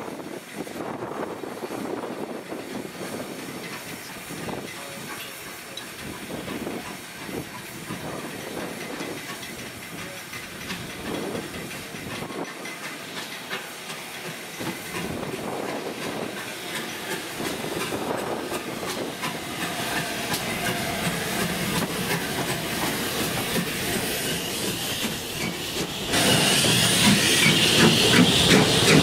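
Steam locomotive 35006, a Merchant Navy class Pacific, standing with a steady hiss of steam while the sound of a second train slowly grows as it draws closer. About three seconds before the end the sound jumps to a much louder, closer steam hiss beside a locomotive.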